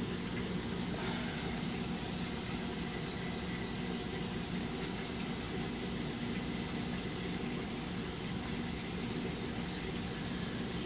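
Steady hum and hiss of a saltwater reef aquarium's pumps and circulating water, an even running sound with no breaks.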